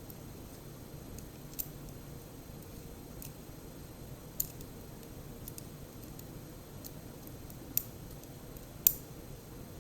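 Small, sharp clicks and ticks from the parts of a disassembled DOM IX10 dimple lock being handled while its pins are taken out. Four clicks stand out, spaced a few seconds apart, and the loudest comes near the end.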